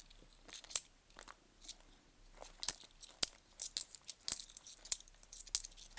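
10p coins clinking against one another as they are sorted through by hand: a few scattered clinks at first, then quick clusters of clinks from about halfway.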